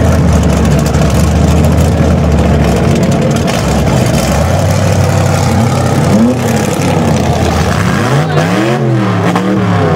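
C3 Chevrolet Corvette's V8 engine revving hard during a burnout, its rear tyres spinning on the dirt. From about six seconds in, the revs rise and fall repeatedly.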